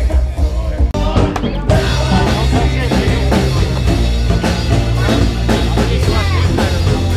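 Background music with drums and a heavy bass line; it dips briefly about a second in, then comes back as a fuller mix.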